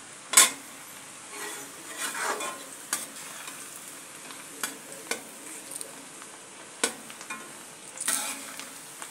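Cabbage being stir-fried in a pan: a spatula scrapes and knocks against the pan every second or two over a low, steady sizzle, the loudest knock about half a second in.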